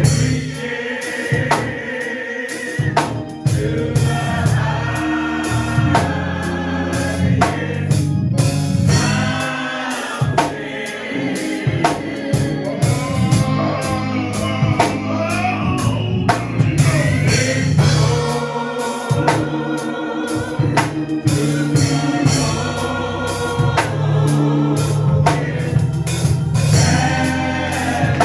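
Gospel singing with a choir, backed by drums and a bass line, with a steady beat.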